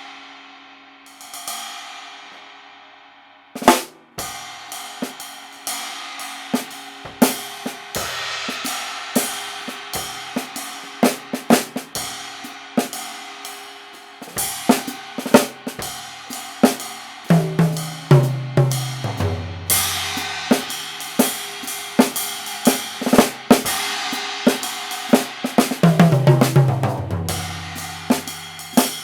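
Drum kit played with sticks to sound-check a Byzance China cymbal repaired by cutting out a crack: two cymbal crashes left ringing, then a steady groove of cymbal, snare and bass drum. Two tom fills fall in pitch, one about midway and one near the end.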